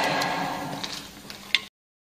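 Drill press running down after cutting a disc from steel sheet, its steady machine noise fading over about a second and a half, with a sharp click near the end before the sound cuts off.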